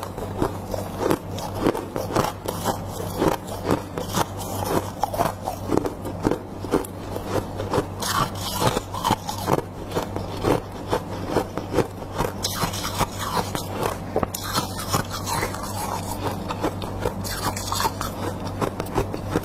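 Close-up biting and chewing of freezer frost: a rapid, irregular run of crisp crunches, with a few longer grinding crunches, over a steady low hum.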